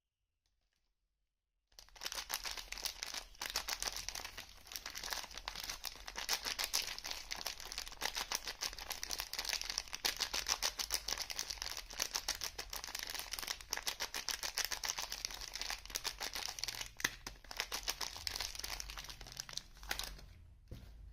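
Soap bar's wrapping being unwrapped and handled: continuous fast crinkling and crackling of the packaging, with some tearing. It starts about two seconds in and stops near the end.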